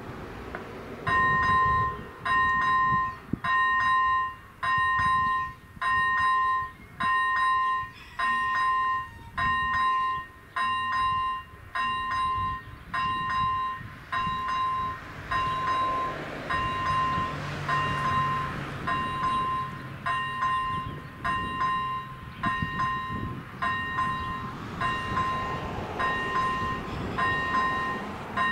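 Czech level crossing's electronic warning bell starting about a second in and ringing evenly, a bit more than once a second, as the crossing activates for an approaching train. A low hum runs under it through the middle.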